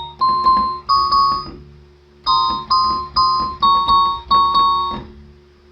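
Electronic keyboard playing a phrase of high sustained notes, some as two-note chords, each with a quick pulsing tremolo. A short pause about a second and a half in splits three notes from five more.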